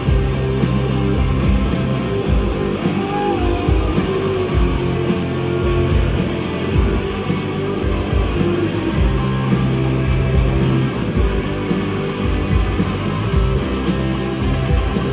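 Live rock band playing: electric guitars over a steady drum beat.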